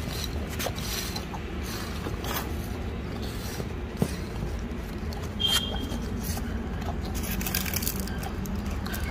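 Two sloth bears eating biscuits off a tiled floor: scattered crunching, clicks and claw scrapes. There is a sharp click about four seconds in and a short high note a little after, over steady low background noise.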